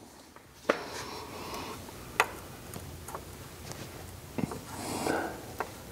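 A few sharp, light clicks and taps, a second or two apart, as a small metal transducer mounting bracket is fitted and handled against a boat's jack plate, over a low steady background hum.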